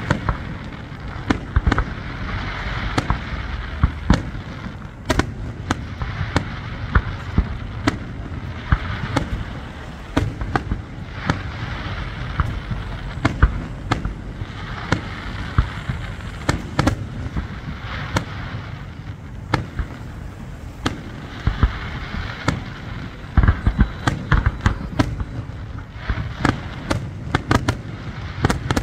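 Fireworks display: aerial shells bursting overhead, many sharp bangs a few each second over a steady crackle and hiss, with a dense cluster of bangs about three quarters of the way through.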